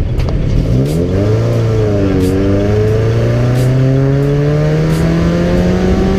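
Scion FR-S flat-four engine and exhaust accelerating: the revs sink at first, climb quickly from under a second in, dip briefly at a gear change about two seconds in, then rise slowly and steadily through the next gear.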